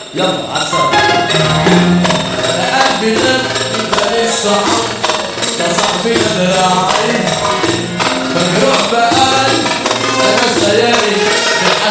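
Egyptian mahraganat music playing with a steady beat.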